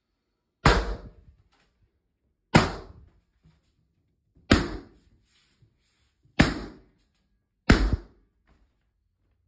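Five big balloons bursting one after another, each a sharp bang that dies away within about half a second, spaced roughly two seconds apart.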